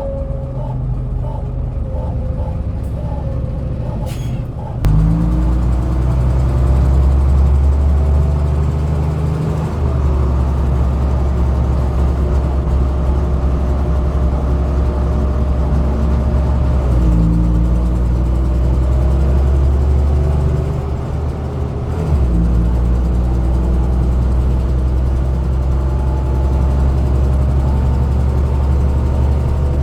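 Dennis Dominator double-decker bus engine ticking over, then after a brief hiss it pulls away loudly with the engine note climbing. The pitch drops and builds again twice as the bus changes up through its gears.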